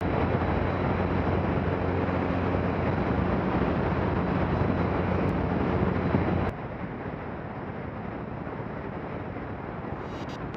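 Light aircraft engine and propeller droning steadily in flight, with wind rushing over the microphone. About six and a half seconds in the sound drops abruptly to a quieter, even wind rush with the engine much fainter.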